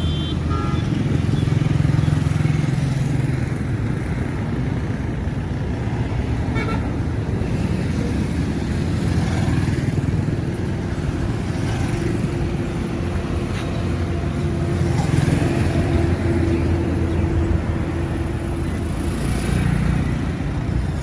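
Roadside traffic: vehicle engines running with a steady low rumble, a held engine tone coming through for several seconds in the middle.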